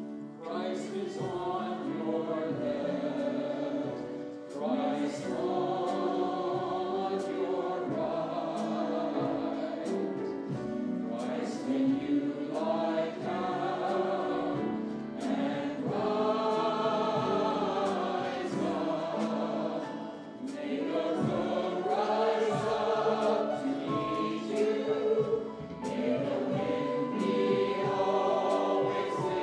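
A choir singing a hymn in sustained chords.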